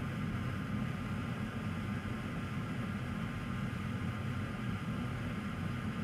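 Steady low hum with a light hiss of background noise, unchanging throughout, with no distinct handling clicks or taps.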